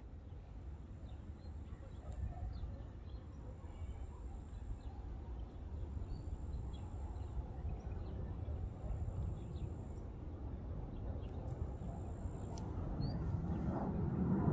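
Outdoor ambience: a steady low rumble with faint, scattered bird chirps. The rumble grows a little louder toward the end.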